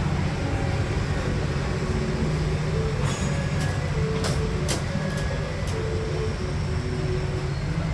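Disneyland monorail train rolling slowly backward while its tow tractor pushes it: a steady low engine-and-rolling rumble, with a few sharp clicks around the middle.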